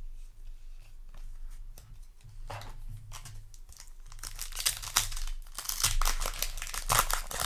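Foil Yu-Gi-Oh! booster pack wrapper crinkling and tearing as it is handled and opened. It is sparse at first and becomes a dense, continuous crackle from about halfway in.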